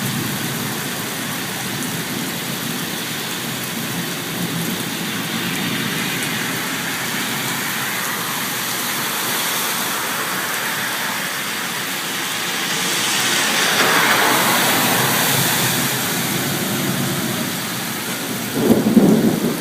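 Steady rush of heavy rain and flowing floodwater, swelling louder for a couple of seconds past the middle. A short low rumble near the end is the loudest moment.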